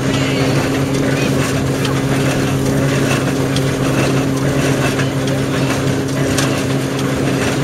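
Ransomes threshing machine working together with a Jones baler: a steady, even mechanical hum, with light knocking and clatter from the moving parts.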